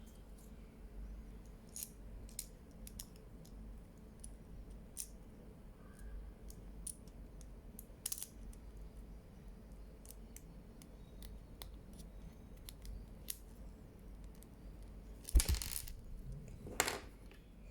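Small plastic clicks and light scraping from the parts of a Honda Vezel key fob being handled and fitted back together, with two louder clicks or clatters near the end.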